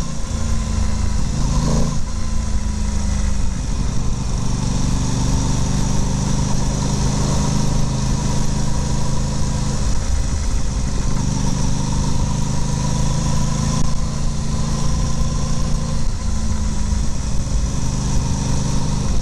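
Aprilia Tuono 660's parallel-twin engine running steadily at low revs while cruising at city speed, with wind noise over the microphone.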